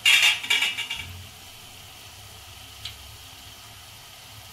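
Batuk (urad dal fritters) frying in hot oil: a loud burst of sizzling and crackling for about a second at the start, settling into a faint steady sizzle, with one small pop near three seconds in.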